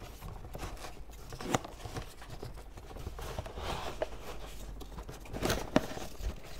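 Light handling noise of jigsaw parts and accessories being fitted back into their packaging: soft rustling with a few sharp clicks and knocks, a small cluster of them near the end.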